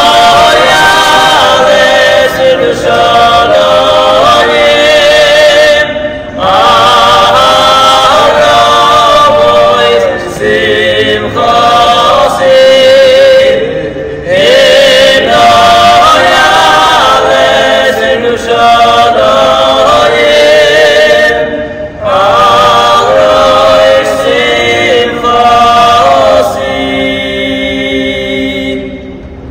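Small group of men singing a cappella in harmony, in phrases broken by short breaths. Near the end a final chord is held and fades away.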